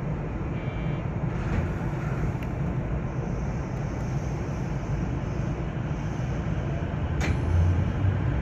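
JR West 225-series electric train running between stations, heard from inside the car: a steady low rumble of wheels and running gear, with one sharp click about seven seconds in.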